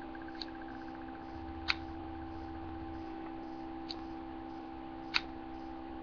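Steady electrical hum with four sharp, isolated clicks spaced a second or more apart, and a faint rapid ticking in the first second and a half.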